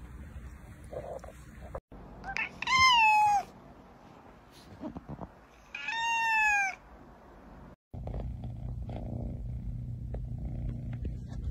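Black domestic cat meowing twice, two drawn-out meows about a second long each, both sliding down in pitch at the end. Near the end a steady low hum takes over.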